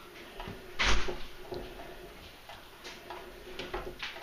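Elliptical trainer clunking and clicking under a cat climbing on its pedals: a loud clatter about a second in, then scattered lighter knocks and ticks.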